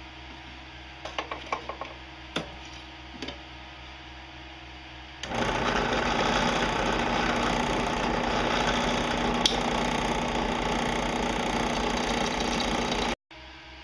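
Bench drill press running with a steady hum and a few light knocks. Then, about five seconds in, the bit bites into a stainless steel plate and a loud, steady drilling noise runs for about eight seconds, cutting off abruptly near the end.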